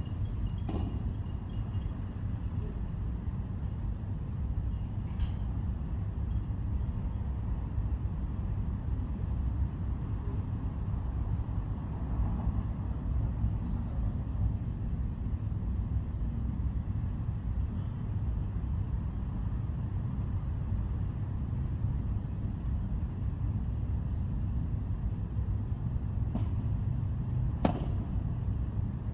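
Steady low background rumble under a continuous high-pitched whine, with a few sharp, widely spaced knocks: about five in all, one of them near the end.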